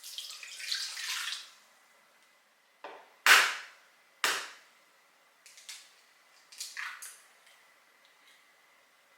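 Kitchen preparation sounds: a short splash of running or pouring water, then three sharp knocks of utensils or containers set down, the middle one loudest, followed by a few lighter clicks and clatters.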